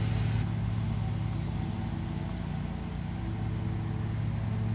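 Steady low hum with a hiss above it and no clear strokes or impacts.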